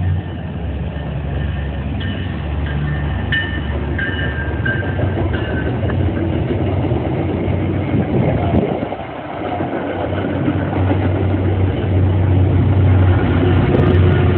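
MBTA commuter rail passenger train passing on a bridge overhead: the coaches roll by with some high squeals, then the diesel locomotive pushing at the rear goes past, its engine drone loudest near the end.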